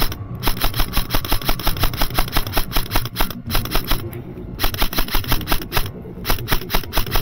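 Scoped airsoft rifle firing full-auto: rapid, evenly spaced shots, about eight a second, in long strings broken by short pauses.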